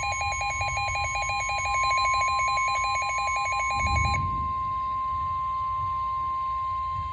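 NOAA Weather Radio's 1050 Hz warning alarm tone: a single steady high tone signalling a severe thunderstorm warning. For the first four seconds or so, a second electronic alarm beeps rapidly over it, then stops.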